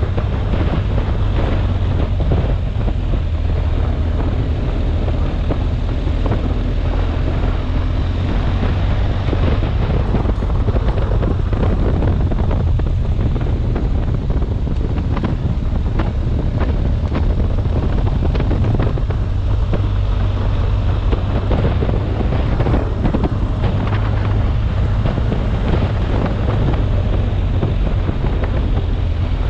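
Wind buffeting the action camera's microphone over the steady low running of a BMW R1250GS's boxer-twin engine, with scattered clicks from the tyres on a gravel track.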